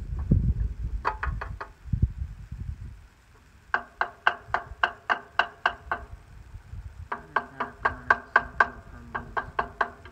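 Hammer tapping on metal in quick runs of about four strikes a second, each blow ringing briefly, with a low rumble at first.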